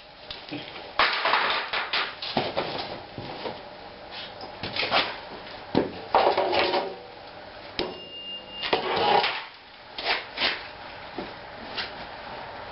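Metal clinks and clanks at irregular intervals as bolts and wheel hardware are handled and fitted back onto a Cub Cadet Original garden tractor's rear axle. A brief high-pitched tone comes a little past the middle.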